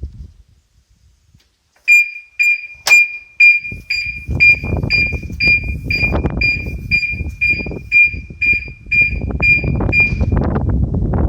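BMW X3 E83 factory alarm siren going off: a loud, steady-pitched beeping at about two beeps a second, starting about two seconds in and stopping near the end, set off by the bonnet being opened while the car is locked, the sign that the factory alarm works. A sharp click comes just after it starts, and a low rushing noise runs underneath.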